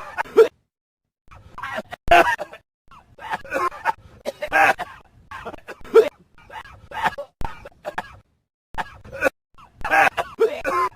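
A dog coughing, in repeated short fits with brief silent pauses between them.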